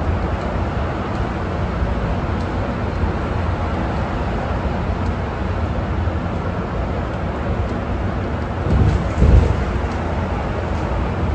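City bus driving at speed, heard from inside the cabin: a steady low rumble of drivetrain and road noise, with a brief louder low thud about nine seconds in.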